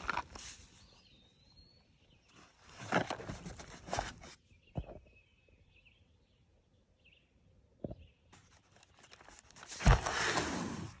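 Cardboard ammunition boxes being handled and turned over, rustling and scraping in three spells with a few sharp taps. The loudest spell comes near the end. Faint bird chirps can be heard in the quieter stretches.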